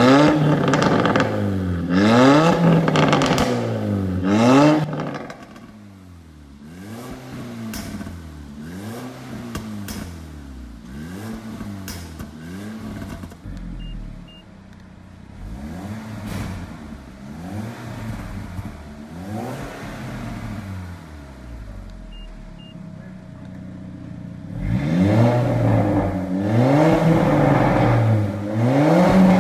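Range Rover Evoque engine revved over and over through an aftermarket RES valved exhaust, a quick rise and fall about every second and a half. The revs are loud for the first few seconds, much quieter through the middle stretch with the exhaust valves closed, and loud again near the end with them opened.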